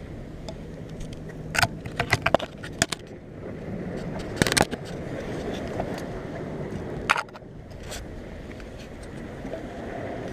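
Steady wind and surf noise with sharp clicks and clatters: a quick cluster about two seconds in, a louder clatter near the middle, and two more later.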